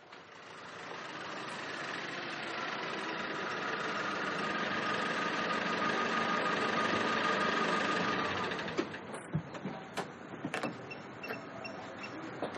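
Nissan Navara pickup's engine running steadily, then shutting off about eight and a half seconds in. A few sharp clicks and knocks follow.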